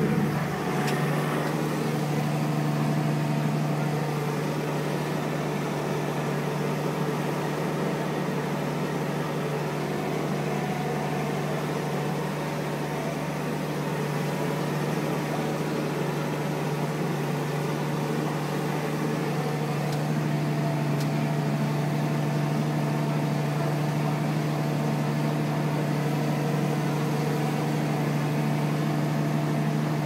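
New Holland tractor's diesel engine running steadily under load while pulling a plough, heard from inside the cab as a constant low drone that holds the same pitch throughout.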